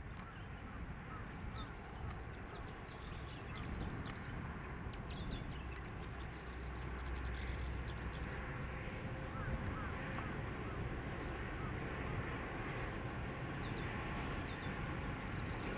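KiHa 183 series diesel train approaching, its engine and wheel noise growing steadily louder. Small birds chirp repeatedly high above it.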